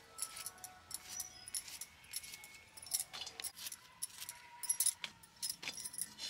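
Crisp, irregular clicks and snaps of bitter gourd being sliced by hand against a hooked iron cutting blade, with the glass bangles on the cutting wrist clinking.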